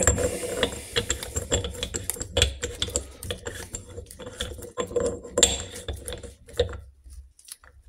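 Steel socket turned by hand on a Norton Commando gearbox sprocket nut, a quick run of metallic clicks and rattles as the nut is spun loosely onto its left-hand thread. The clicking stops about seven seconds in.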